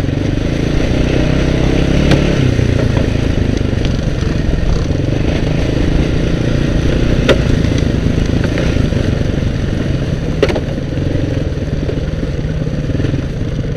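ATV engine running steadily under load as the quad climbs a rough trail, with three sharp knocks, about 2, 7 and 10 seconds in.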